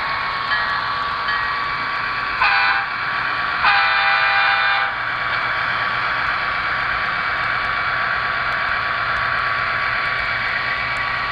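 Train horn sounding a short blast and then, about a second later, a longer one, over a steady rushing train-running noise.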